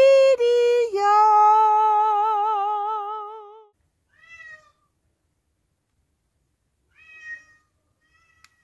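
A singing voice holds a long note with a wavering vibrato that fades out about three and a half seconds in. It is followed by short cat meows, one about four seconds in and another near the end.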